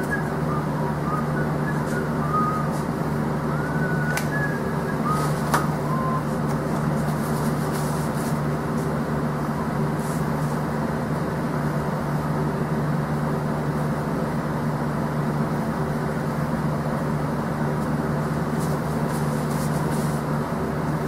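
Steady low machine hum at an even level. A few faint short squeaks and a couple of light clicks come in the first six seconds.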